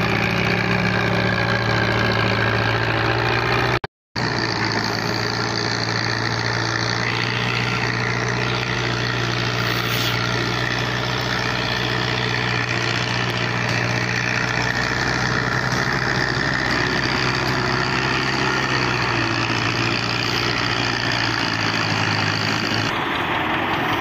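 Belarus 510 tractor's diesel engine running steadily while pulling a heavily overloaded sugarcane trolley. The sound cuts out briefly about four seconds in.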